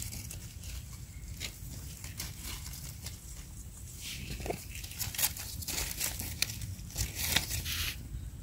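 Dry leaf litter and forest debris rustling and crackling in short, irregular bursts, busier about halfway through and again near the end.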